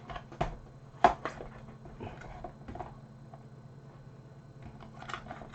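Clicks and knocks of plastic parts being handled on a Vax Glide cordless vacuum cleaner while its battery is fitted, the sharpest knock about a second in, followed by a few lighter clicks.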